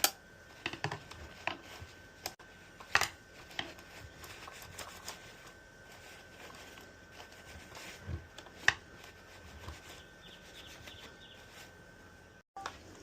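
Scattered clicks, knocks and rubbing of chainsaw parts being handled while a new bar and chain are fitted to an electric chainsaw, with a few sharper knocks, the loudest about 3 s in and near 9 s.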